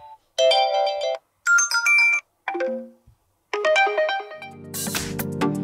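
OPPO A53s 5G ringtone previews from the phone's speaker: four short melodic chimes, one after another with brief gaps, as tone after tone is selected. Near the end, electronic music with a heavy bass comes in.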